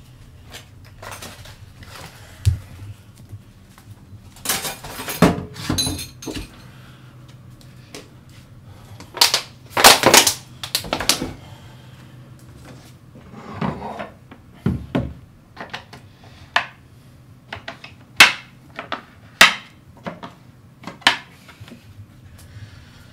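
Irregular knocks, bumps and clattering of objects being handled or knocked about, coming in clusters and loudest about ten seconds in.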